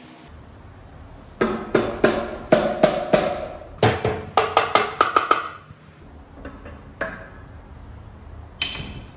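Hammer blows on metal parts of a Honda GX120 engine being taken apart: about a dozen quick ringing strikes in two runs, followed by a couple of lighter single knocks near the end.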